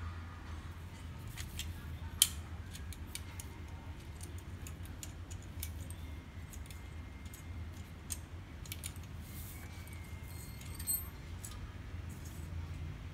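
Small clicks, ticks and rattles of a laser printer fuser unit's plastic frame and metal parts being handled and prised at with a metal pick, with one sharp click about two seconds in. A steady low hum runs underneath.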